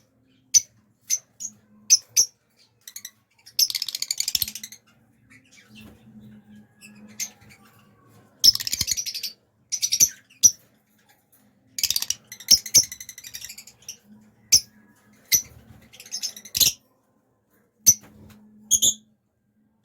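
A pair of small pet parrots calling: short sharp chirps, broken by several bursts of rapid chattering about a second long.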